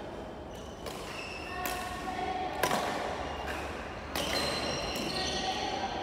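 Court shoes squeaking on a wooden sports-hall floor, with several sharp smacks of badminton play, echoing in the large hall.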